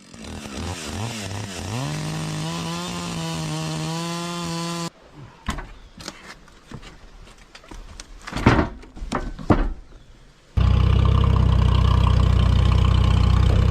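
Chainsaw revving up to full throttle and holding a steady high pitch while cutting rounds off a pine log, then cutting off abruptly about five seconds in. A few scattered knocks follow. Near the end a loud engine starts running steadily at a low pitch.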